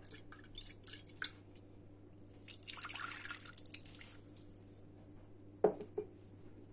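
Boiling water poured briefly into a glass bowl to rinse out the leftover wheat mixture, with a few small clicks before it and two knocks near the end.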